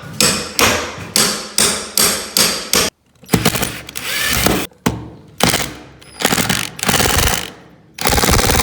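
Steady hammer blows, about two and a half a second, for roughly the first three seconds. After a short break come longer rasping, grinding bursts, with the loudest near the end.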